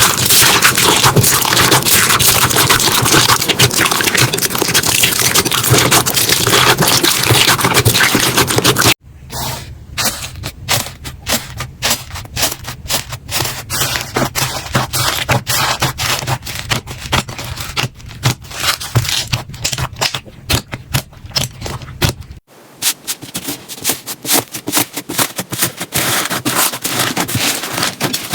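Slime being squeezed and worked by hand, with dense crackling and clicking. The sound changes abruptly twice, about 9 and 22 seconds in, the first part the loudest.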